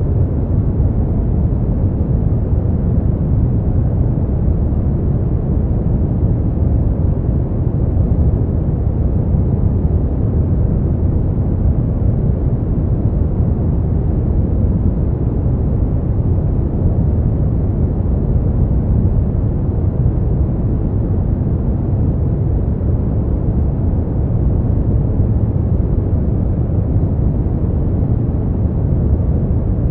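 Steady brown noise: an even, deep rushing hiss, strongest in the low end and falling away in the highs, unchanging throughout.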